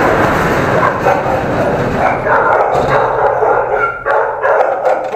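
Several kennel dogs barking at once, their barks overlapping into an unbroken din.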